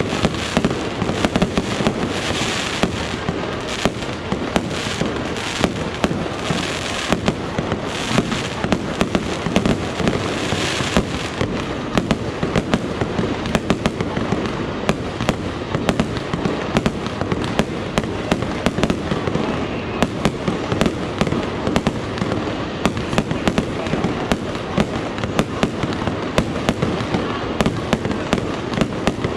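Fireworks display going off: a dense run of sharp bangs, several a second, with no let-up through the whole stretch.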